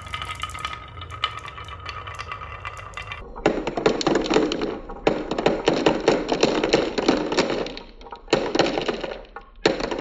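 Marbles rolling down a wooden wavy-groove slope and clicking along it. About three and a half seconds in, they begin pouring off the end into a plastic toy truck bed and clatter against the plastic and each other in dense runs until near the end.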